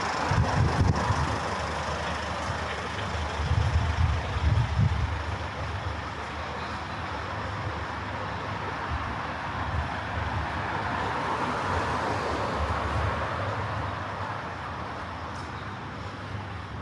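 City street traffic: motor vehicles passing, a steady wash of engine and tyre noise with heavy low rumbles about half a second in and again around four seconds, and a passing vehicle swelling and fading near the middle.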